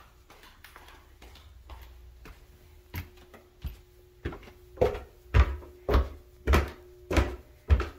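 Footsteps climbing bare wooden stairs: soft steps at first, then from about three seconds in a steady tread of thumps, roughly one every 0.6 seconds, growing louder. A faint steady hum runs underneath.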